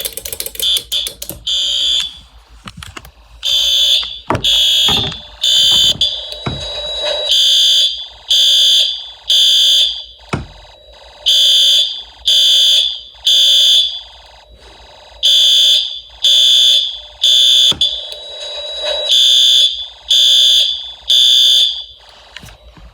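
Fire alarm horn sounding a high-pitched beep, about half a second on and half a second off, in sets of three with a longer pause between sets (the temporal-three evacuation pattern). It is in alarm because a manual pull station has been pulled. A few short knocks are heard early on.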